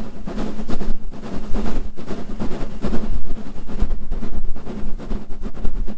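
S15 steam locomotive 506 working hard up a steep incline: a loud, continuous mix of exhaust and running noise heard close behind the engine, with heavy, uneven rumble from wind buffeting the microphone.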